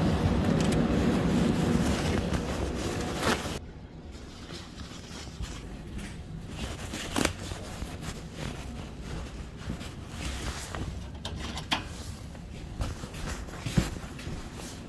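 Loud, steady industrial rumble in a shipyard that cuts off suddenly about three and a half seconds in. After it comes a much quieter room background with scattered knocks and clicks.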